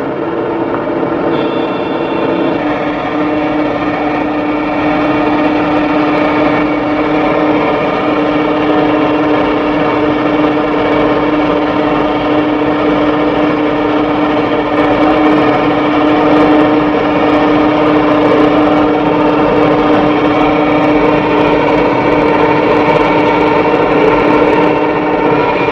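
Heavy diesel machinery engine running hard at steady high revs, a constant drone whose pitch steps up slightly about two seconds in.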